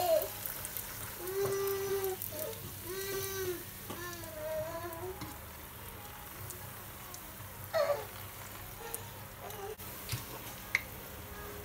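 A round of chebbak dough frying in hot oil in a pan, a steady sizzle, while a fork pushes it around. There are a few light clicks of the fork against the pan near the end.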